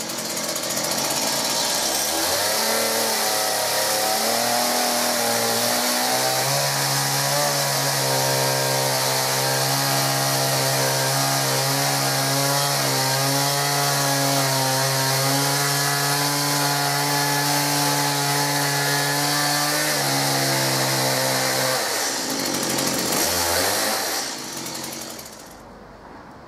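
Chainsaw cutting a slice off a chestnut trunk: it revs up over the first few seconds, runs steadily under load for about fifteen seconds, then the revs drop, rise briefly and cut off near the end.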